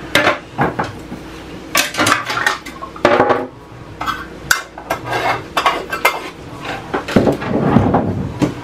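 Jars, a tin canister and kitchen utensils being handled and set down on a wooden countertop: a run of irregular clinks, clatters and knocks.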